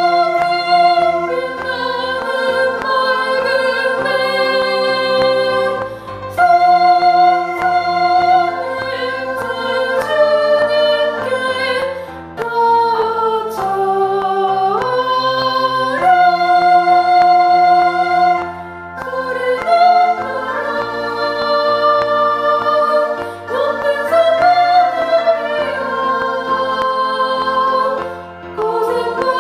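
Choir singing a Korean anthem in four-part harmony with piano accompaniment: a soprano part-practice track, the soprano line brought forward. The phrases are held notes with brief breaks between them.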